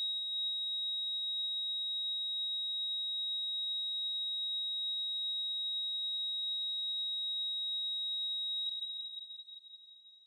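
Heart monitor flatline tone: one steady, high-pitched beep held unbroken for about nine seconds, then fading out near the end. It is the sign that no heartbeat is detected.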